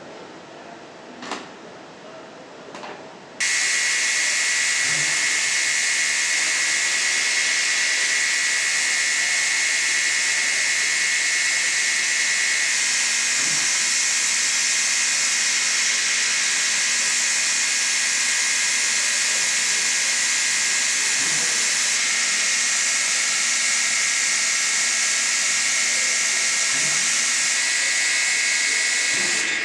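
Assembly-line machinery: quiet machine background with two light clicks, then an abrupt switch to a loud, steady hiss with a high whine.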